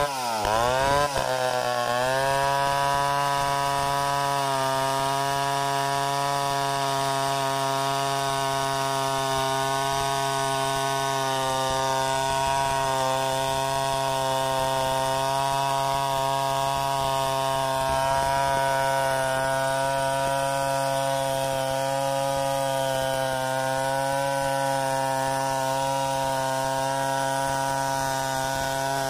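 Stihl 070 two-stroke chainsaw ripping lengthwise through a log to cut boards freehand. Its engine speed wavers in the first couple of seconds, then holds steady under load through the long cut.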